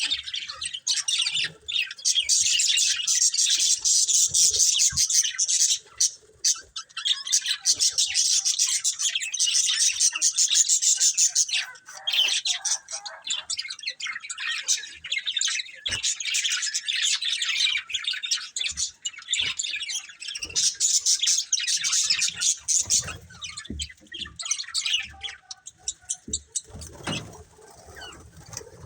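Budgerigars chattering and chirping in a rapid, continuous warble with short pauses, thinning out near the end.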